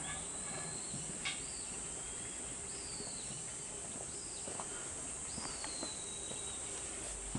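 Steady high drone of insects in surrounding woodland, with a bird giving about four falling whistled calls.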